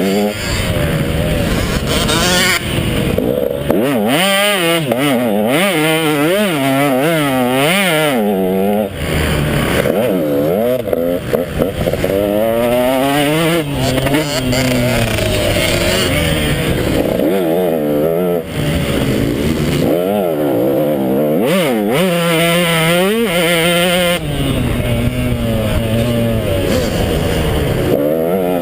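Two-stroke KTM 150 XC dirt bike engine revving up and easing off over and over, its pitch climbing and dropping every second or two as the bike is ridden hard.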